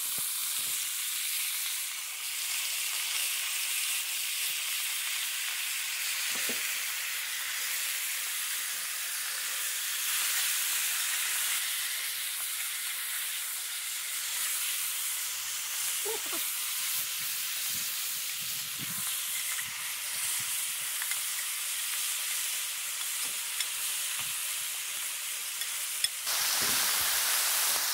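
Beef ribs searing in hot fat in a cast-iron pot over a wood fire: a steady sizzle, with a few faint clicks of a metal utensil turning the meat. The sizzle gets louder near the end.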